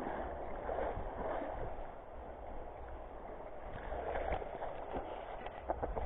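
Shallow sea water sloshing and splashing around a person wading, with a low wind rumble on the microphone. A quick run of small splashes or clicks comes near the end.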